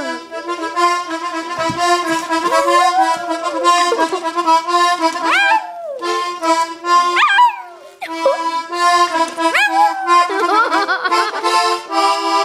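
Accordion playing sustained, pulsing chords while a Maltese dog howls along in several high, sliding cries that rise and fall, a meow-like sound.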